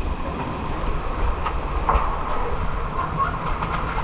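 Steady rushing of fast-flowing canyon water: a continuous loud noise with a heavy low rumble.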